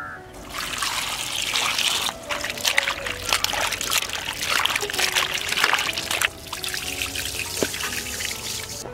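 Water trickling and splashing as it is poured, with a brief drop about six seconds in.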